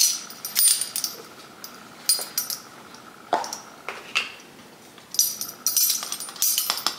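Metal measuring spoons on a ring clinking and jingling in several short bursts as they are handled to measure out baking powder.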